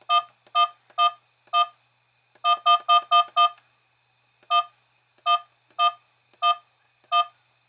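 Key-press beeps from a rear-view-mirror dash cam: about fifteen short, identical electronic beeps, one for each button press while scrolling its settings menu, with a quick run of six a little before the middle.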